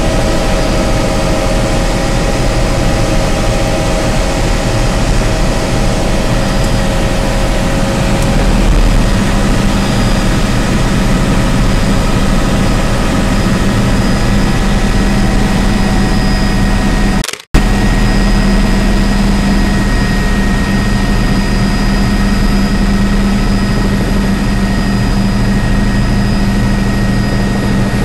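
Helicopter cabin noise in flight: the engine and rotors make a loud, steady drone with a faint high whine. The sound cuts out completely for a fraction of a second about seventeen seconds in, then resumes unchanged.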